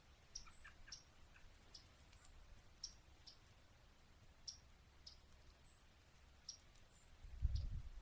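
Faint, sharp chip notes of yellow-rumped warblers, repeated irregularly about a dozen times. A low rumble of wind on the microphone comes near the end.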